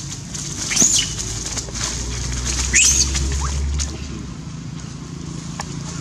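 Young macaques squealing while they wrestle: two short high-pitched squeals, one about a second in and one near three seconds in, with a low rumble in between.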